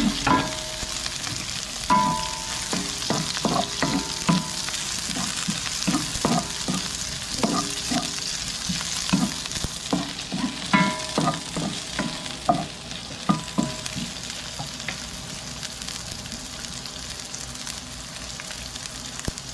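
Onion, garlic and ginger sautéing in hot oil in a frying pan, sizzling steadily while they are stirred with quick strokes that knock and scrape against the pan. The stirring stops about two-thirds of the way through and the sizzle carries on alone.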